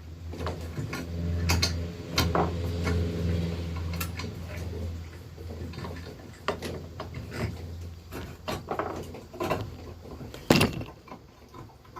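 A small electric power-tool motor runs steadily for several seconds and then winds down, amid scattered clinks and knocks of metal parts being handled. A single sharp knock comes about ten and a half seconds in.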